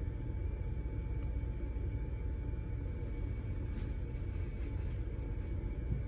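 Steady low background rumble of room noise, even in level throughout, with a faint click about four seconds in.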